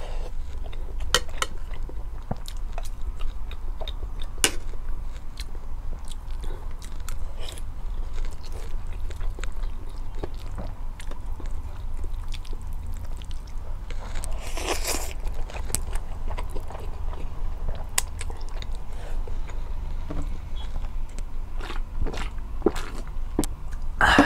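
A person eating spicy ramen noodles close to the microphone: chewing with many small wet mouth clicks, and a louder noisy sound about fifteen seconds in. A steady low hum runs underneath.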